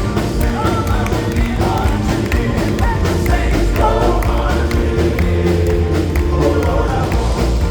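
Live southern gospel quartet music: a band playing an upbeat song with a heavy bass and steady beat, with voices singing.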